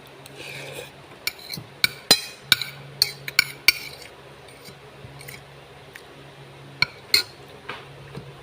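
Utensils clinking against a dish while eating noodles: a quick run of about seven sharp, ringing clinks in the first half, then two more near the end, over a low steady hum.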